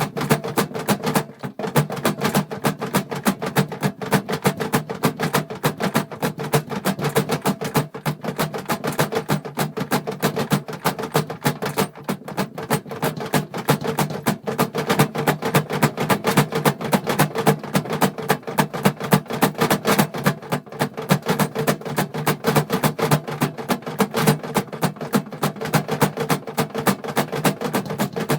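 Metal tools, screws and small parts clattering and rattling continuously as hands rummage through a toolbox, a dense run of small knocks and clinks.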